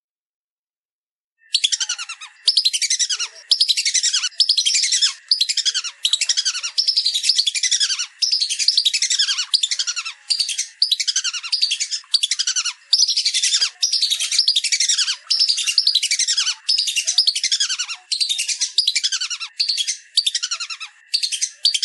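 Lesser whistling ducks calling: dense runs of high, shrill, downward-sweeping whistles in bursts about a second long with short breaks, starting about a second and a half in.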